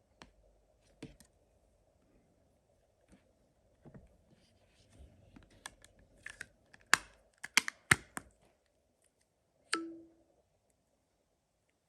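Clicks and taps of a phone and its case being handled, loosest at first, then a quick run of sharp clicks past the middle, and one knock near the end that rings briefly.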